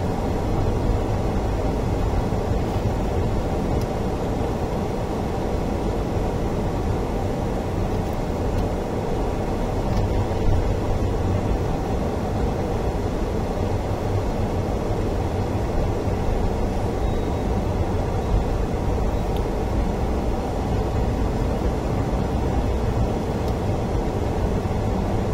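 Steady low rumble of a car driving on wet streets, heard from inside the cabin: engine and tyre noise with no distinct events.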